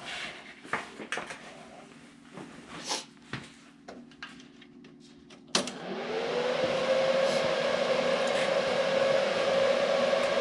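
A few light clicks, then about five and a half seconds in a sharp click as the Everlast PowerTIG 255EXT TIG welder is switched on, and its cooling fan spins up into a steady whir with a hum that rises briefly and settles.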